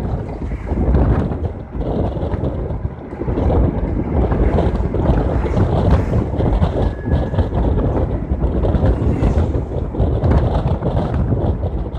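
Wind buffeting the microphone through the open window of a moving vehicle at highway speed, mixed with road and engine noise.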